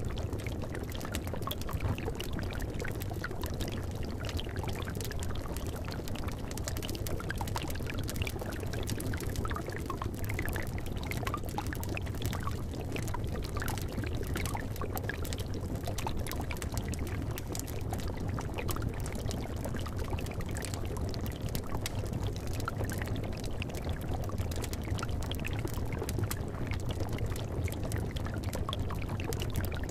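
A cauldron of liquid bubbling steadily, mixed with many small scattered pops and crackles from the fire beneath it.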